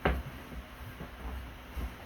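A single sharp knock right at the start, then low rumbling and a few faint clicks of handling.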